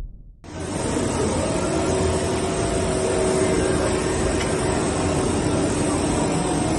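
Steady machine-shop hum and hiss with a faint held tone, as of machinery and ventilation running, starting abruptly about half a second in.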